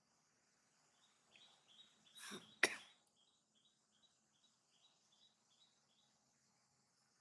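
Steady high insect buzzing. About two and a half seconds in comes a short cough-like burst ending in a sharp click, and a run of faint high chirps repeats about three times a second.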